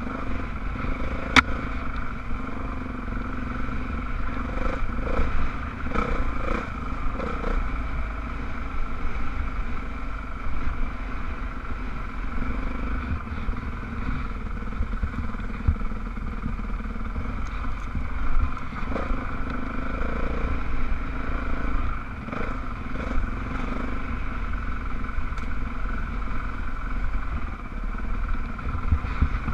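Dirt bike engine running at a fairly steady pitch while riding a trail, under a heavy low rumble, with scattered small knocks and one sharp click about a second and a half in.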